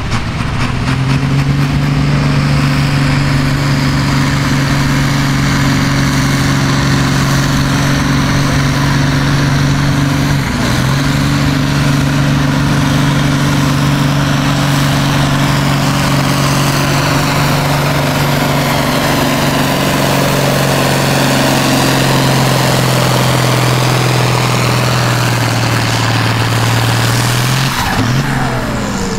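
Diesel farm tractor engine held at full throttle under heavy load, pulling a weight-transfer sled at a steady pitch, with a brief dip about ten seconds in. Near the end the engine note drops away as the pull ends.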